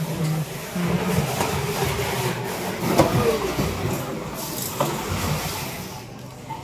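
A large knife cutting trevally steaks on a wooden block, with two sharp knocks of the blade on the block about three and five seconds in, over a steady machine-like drone that fades near the end.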